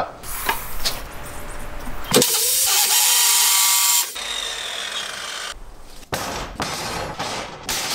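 Abrasive cut-off saw grinding through flat steel bar: a loud hissing grind with a steady whine, cut short after about two seconds and running on more quietly. Near the end come a few sharp knocks of steel bars being handled.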